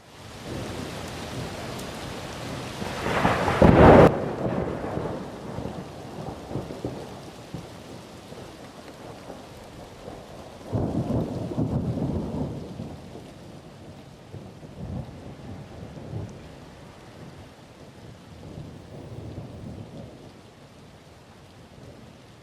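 Thunderstorm with heavy rain: a loud thunderclap three to four seconds in that cuts off suddenly, a second long rumble of thunder around eleven seconds, and weaker rumbles after that, over steady rain.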